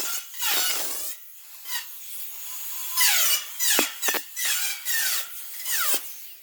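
A power tool cutting thin sheet steel in a series of short passes, its pitch dropping each time it bites into the metal, with brief pauses between cuts.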